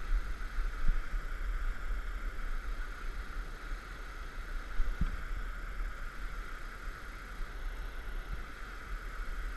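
Steady rushing of river whitewater rapids, with a low rumble on the microphone underneath and a soft knock about five seconds in.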